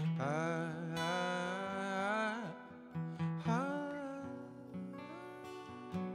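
Two steel-string acoustic guitars picking and strumming a calm song, with a man's voice singing long, wavering held notes over them.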